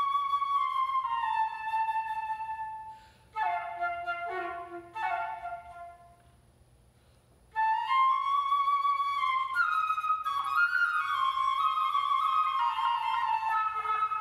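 Unaccompanied concert flute playing in a reverberant hall: long held notes, then a few short detached notes that fade into a pause of about a second and a half. The flute then comes back with a run of quicker notes that ends on a held note.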